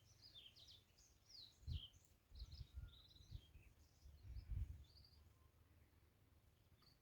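Faint small birds chirping, many short calls through most of the stretch, with a few low muffled bumps in between.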